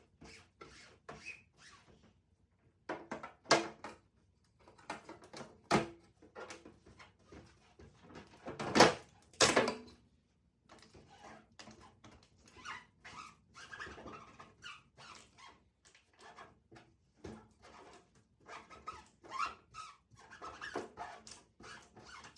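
Scattered clicks, knocks and squeaks from a refrigerator being cleaned out: plastic shelves and drawers handled and surfaces wiped, with a few louder knocks.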